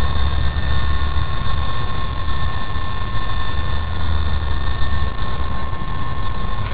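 WLtoys V913 RC helicopter hovering: a steady electric-motor whine with the whirr of its rotor, over a low rumble.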